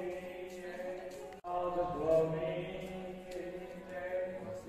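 Devotional chanting with long held notes, broken off for an instant about a second and a half in.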